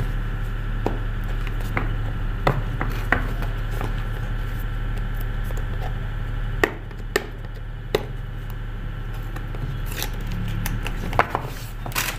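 Cardboard mobile phone box being handled and opened by hand: scattered light taps and clicks of the cardboard, the sharpest about halfway through and near the end. A steady low hum runs underneath.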